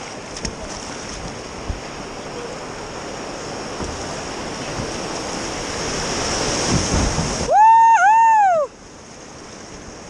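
Whitewater rapids rushing around a kayak as it is paddled through them, with wind on the microphone, growing louder. Near the end the water noise stops abruptly and a loud two-part call sounds for about a second, rising then falling.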